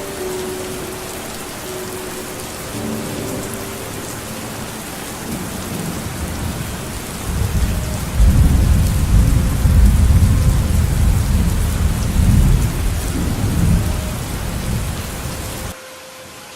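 Steady rain, with a long, low rumble of thunder building about seven seconds in and rolling on for several seconds. The rain sound drops away abruptly near the end.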